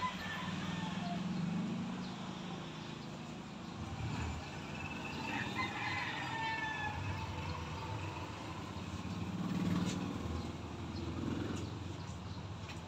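A rooster crowing about five seconds in, over a low rumble that swells and fades.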